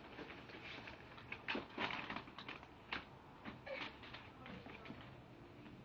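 Faint, irregular crunching clicks, thickest in the first half: a common lizard chewing a locust hopper held in its jaws.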